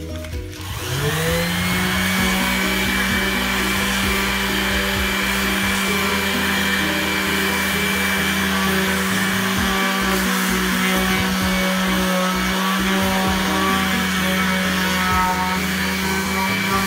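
Electric orbital sheet sander starting up about a second in, then running steadily as it sands a wooden disc: a steady motor hum with a higher whine.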